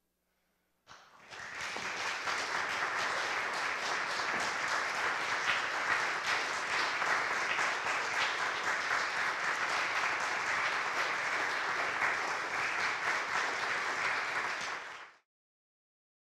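Audience applauding, starting about a second in after a brief silence and cut off abruptly near the end.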